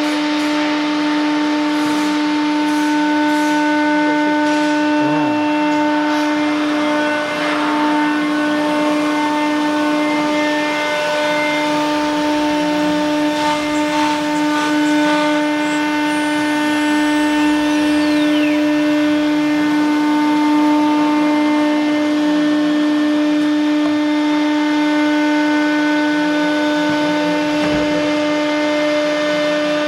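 ATC CNC router running, its spindle holding one steady whine with several overtones over a constant rushing noise.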